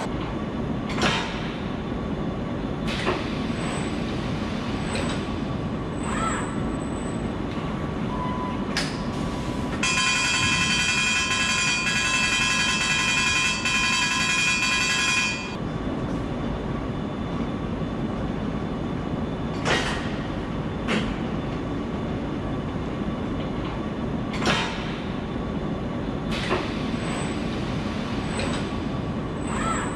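Car assembly plant ambience: a steady bed of machinery and conveyor noise with scattered sharp clanks. Short high beeps come and go near the start and the end, and a steady pitched tone with several overtones sounds for about five seconds in the middle.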